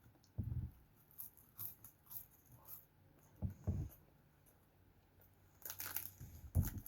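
Quiet eating sounds of fast food: bites and chewing, with a few short soft thuds and scattered small clicks and rustles.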